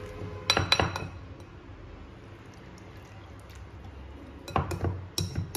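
Metal wire whisk clinking against a glass mixing bowl while stirring thick flour-and-semolina batter: a quick run of strikes about half a second in, then another run near the end.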